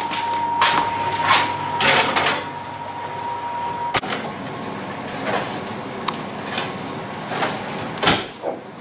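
Stainless steel baking tray scraping and clattering as it is slid onto an oven rack, with the oven door handled: a sharp click about four seconds in and another near the end.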